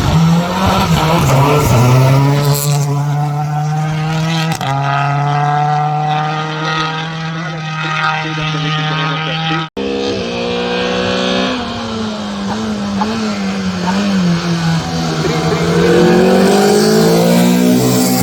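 Hill-climb race car engines running hard at high revs. The engine pitch holds, steps at gear changes and glides up. About ten seconds in the sound cuts abruptly to another car whose engine note wavers, then climbs again near the end.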